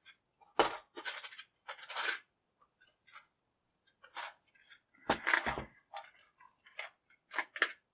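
Small metal parts of a Dexter by Schlage lock cylinder and lock-picking tools clinking and clattering against a hard surface as they are handled: a string of sharp separate clinks, with heavier knocks about half a second and five seconds in.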